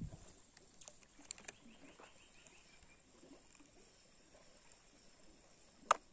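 Quiet riverside ambience with a few sharp clicks, the loudest just before the end, and a brief faint trill of quick repeated chirps about a second and a half in.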